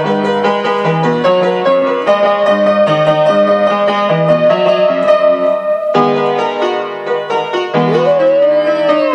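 Piano playing a pop tune in steady chords. Near the end the flat-coated retriever joins in with a howl that rises and then falls in pitch.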